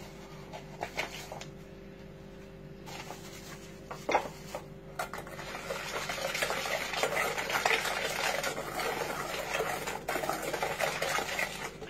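A wire whisk beating a thin egg, sugar and milk batter in a metal mixing bowl, with rapid scratchy scraping and clinking against the bowl. The first few seconds hold only a few light knocks, and the steady whisking sets in about five seconds in.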